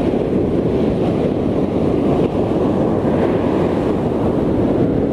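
Wind buffeting the microphone over the steady rush of breaking ocean surf.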